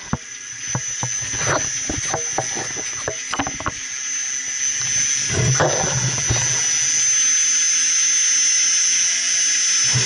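HVAC water circulation pumps (electric motor driving a centrifugal pump) starting up: a steady high whine over a low hum, building for the first several seconds and then running level, with a few knocks in the first seconds.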